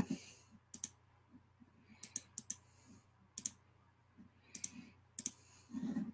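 Irregular clicking on a computer keyboard: short clicks, sometimes two or three close together, with pauses between, over a faint steady low hum.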